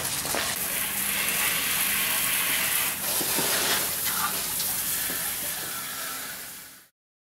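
Water running in a steady hissing rush, fading out near the end.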